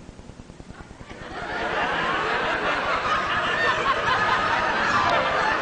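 Audience laughter swelling up about a second in after the punchline and carrying on as a crowd-wide roar of laughing.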